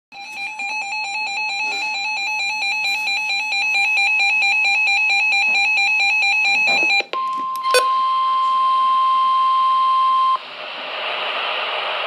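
A weather radio's alert alarm beeping in a fast, pulsing pattern of high electronic tones. About seven seconds in, the steady single-pitch 1050 Hz NOAA Weather Radio warning alarm tone follows; it cuts off about three seconds later, leaving radio hiss.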